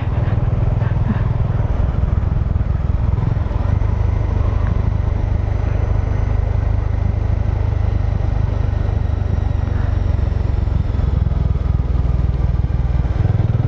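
Motorcycle rolling down a steep hill road with the throttle closed, coasting, heard as a steady low rumble of wind and road noise.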